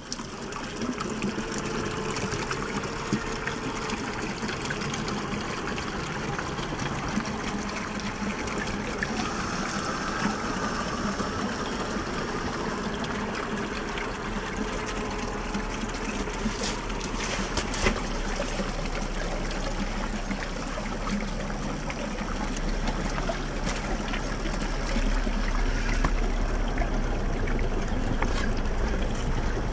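Stream water running steadily over rock, with a few sharp clicks about two-thirds of the way through.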